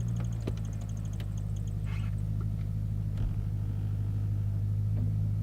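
Ford Falcon XR8's Boss 260 V8 engine idling, a steady low rumble.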